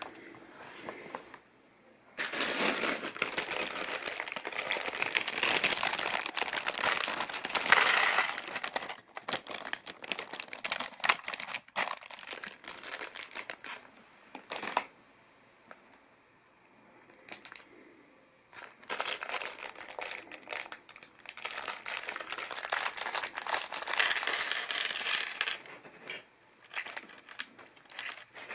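Plastic LEGO parts bags crinkling as they are handled, in two long stretches with a quieter gap in the middle and scattered small clicks.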